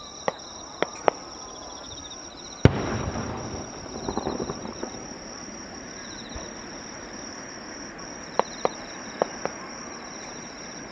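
Fireworks display: one loud aerial shell bang about a quarter of the way in, followed by a couple of seconds of crackling, with clusters of smaller sharp pops near the start and again about three-quarters through. Crickets keep up a steady high chirring throughout.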